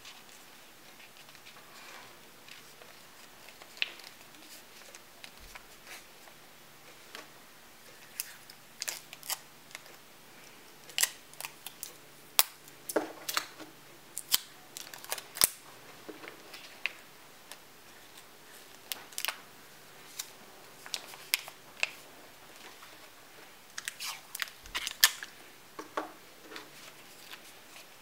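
Stiff folded paper being handled: scattered crisp clicks and crinkles, coming in clusters, as the parts of an origami paper gun are pressed, creased and slotted together.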